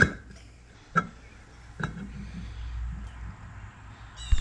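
Metal clinks as a 200-4R transmission's direct drum is worked down over its center support: three sharp knocks with a brief metallic ring in the first two seconds, then a heavier thump near the end.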